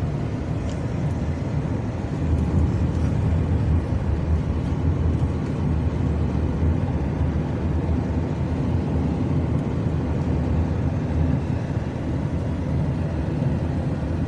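Steady low rumble of tyres and engine heard inside a moving car's cabin.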